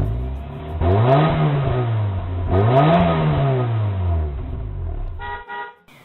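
Car engine revved twice, the pitch climbing and falling back each time, followed near the end by a short tonal passage.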